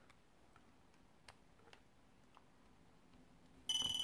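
Faint ticks of a small plastic micro quadcopter being handled. Near the end comes a short, high-pitched electronic beep, typical of the flight controller's piezo buzzer as the board powers up over USB.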